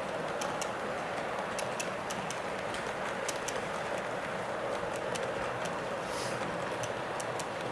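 Model train wagons rolling past close by: a steady rumble of running wheels, with the wheels clicking irregularly, a few times a second, over the rail joints.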